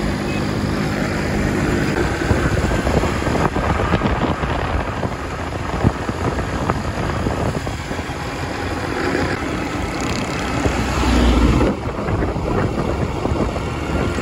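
Steady engine and road noise of a vehicle driving along a highway, heard from on board. A louder low rumble swells for about a second, roughly eleven seconds in.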